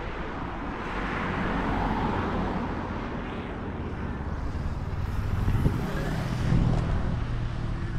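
Road traffic: a car going past, its tyre hiss swelling and fading in the first few seconds, then a lower engine rumble building in the second half.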